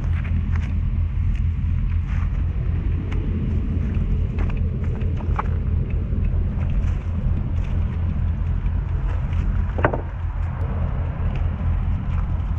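Steady low rumble of engine and traffic noise from the adjacent highway, with light knocks and clicks as a loaded recumbent trike is pushed over wooden planks, and a brief squeak about ten seconds in.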